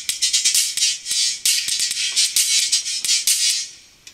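Music played through a JBL Shock Wave 4T titanium-diaphragm compression horn tweeter on its own: only the highs come through, as a quick rhythm of sharp ticks and hits with no bass or midrange. The sound drops away near the end.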